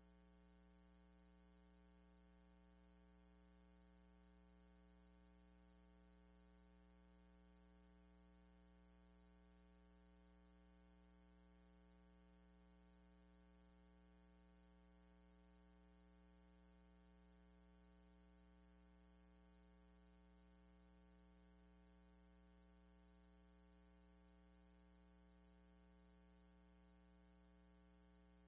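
Near silence: a faint, steady electrical hum with nothing else happening.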